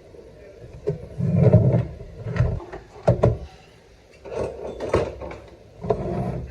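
Handling noises: a run of irregular knocks, clicks and scrapes as a plastic-cased table radio is moved about on a bench, the loudest thuds about a second and a half in.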